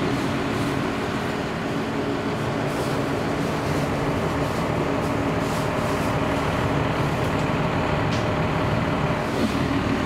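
An engine running steadily at an even pitch, a constant mechanical hum.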